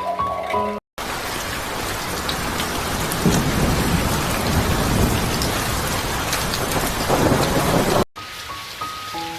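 Heavy rain pouring, with low rumbles of thunder in the middle and again near the end. The rain cuts in abruptly about a second in and cuts off abruptly near the end, with soft music on either side.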